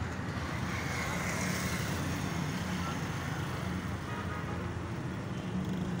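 Steady road traffic noise: the low rumble of cars and motorbikes running along a busy road.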